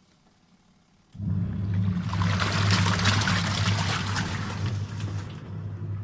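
Mika 6 kg semi-automatic washing machine's wash tub starting up again about a second in after a pause, its motor humming steadily while the load of clothes churns and sloshes in the water.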